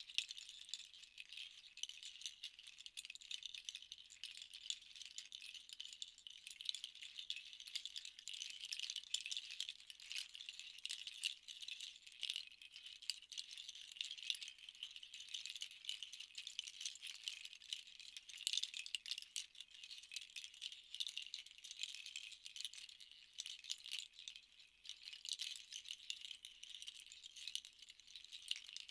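A pair of handheld cluster rattles shaken continuously, one in each hand, making a soft, dense clatter of many small pieces. The clatter swells and eases gently in strength.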